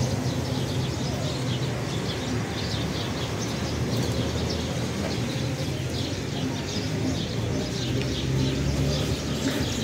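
Small birds chirping over and over above a low, steady hum of traffic.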